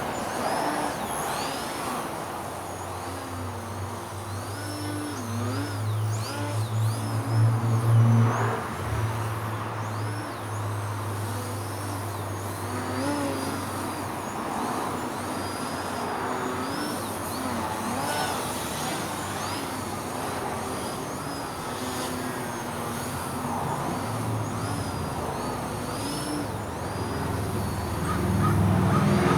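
Brushless electric motor and propeller of a small 3D RC plane (2200kv on a 2S lipo) whining in flight, the pitch rising and falling again and again as the throttle is worked. A low rumble underneath swells to its loudest about eight seconds in and again near the end.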